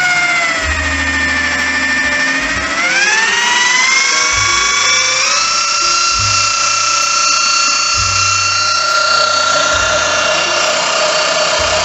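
DeWalt corded hand drill motor running with a whine that drops in pitch over the first couple of seconds, climbs between about three and five seconds in, then holds steady: its speed being reset by a hose clamp tightened around the trigger, the drill driving a shop-built stock feeder.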